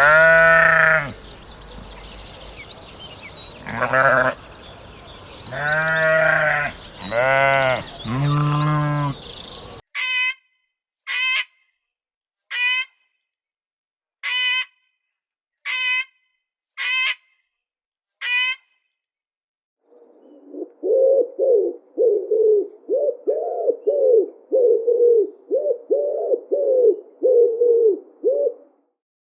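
Livestock bleating about five times in long pitched calls, followed by seven short, high calls about a second apart from another animal. After a brief pause comes a long run of quick, low pulsed calls.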